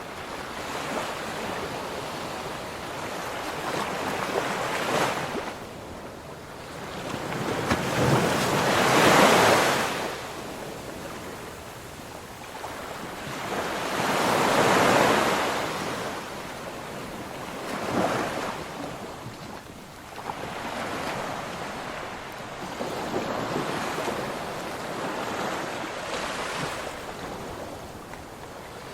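Ocean waves breaking on a shore and washing back, in slow swells; the biggest waves crash about a third of the way in and again near the middle.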